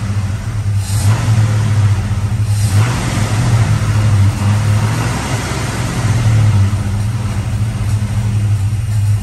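Valiant Charger's warm engine running with an uneven, wavering note. The owner suspects vacuum leaks all over the engine and a poor carburettor.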